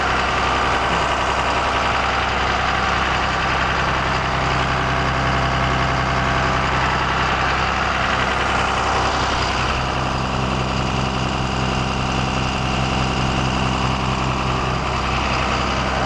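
Cummins 5.9-litre inline-six turbo diesel of a rear-engine Blue Bird All American school bus idling steadily, heard up close at the open engine compartment.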